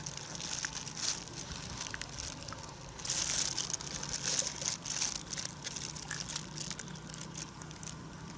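A plastic bag crinkling and rustling in the hand while tilapia are worked out of a gill net and put into it, with many small crackles, loudest about three seconds in.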